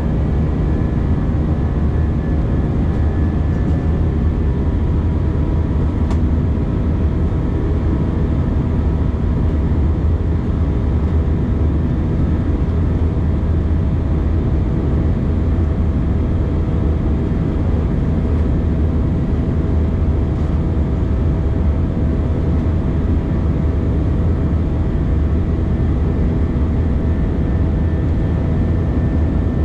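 Airbus A319 cabin noise during the climb after takeoff: a steady, loud jet-engine and airflow roar, heaviest in the low end, with faint steady engine tones above it.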